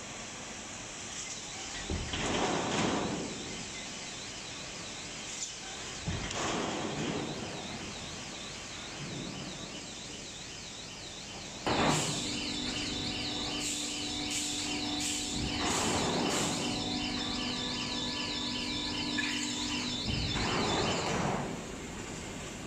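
Factory machinery noise from a plywood hot press line and its automatic veneer loader, with a few soft swells and knocks in the first half. About halfway through a steady hum and a fast-warbling high tone start abruptly and run for about nine seconds.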